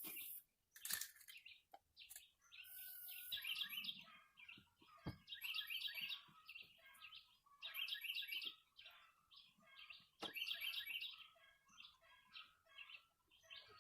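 Faint songbirds chirping in repeated bursts of quick, high chirps, with a few sharp clicks in between.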